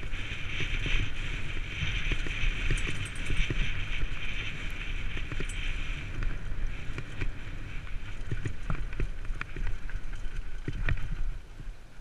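Downhill mountain bike coasting fast down a dry dirt and gravel trail: steady rolling noise with frequent knocks and rattles from the bike over bumps, and wind rumble on the microphone. The noise eases off near the end.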